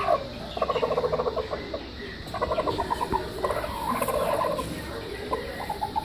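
Broody aseel hen giving rapid, stuttering growl-like clucks in several short bouts: the warning call of a sitting hen disturbed on her eggs.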